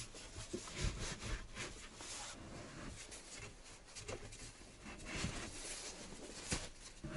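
Quiet rustling and rubbing of a nylon sleeping bag as hands smooth it and tuck it into place, with a few soft knocks.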